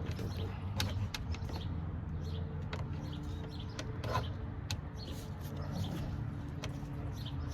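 Scattered light clicks and taps of a plastic trim cover and door parts being handled and fitted on a pickup truck door, over a steady low hum.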